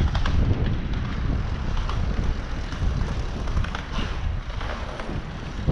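Wind buffeting an action camera's microphone on a moving bicycle, a steady low rumble with tyre noise on asphalt and a few light clicks.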